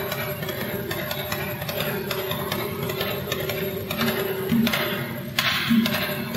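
Fast, dense rattling like shakers, with a few louder thuds in the second half and a low steady hum underneath.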